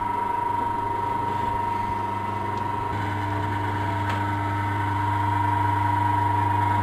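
Rice cracker (kerupuk gendar) dough sheeting and cutting machine running with a steady motor hum; about three seconds in the hum grows a little louder and fuller.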